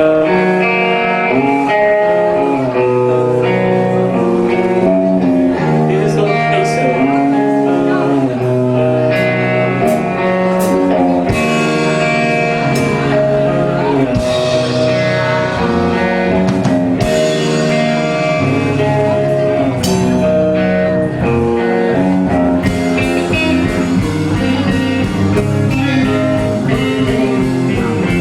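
Live rock band playing a song, led by guitar chords and melody, with occasional cymbal hits.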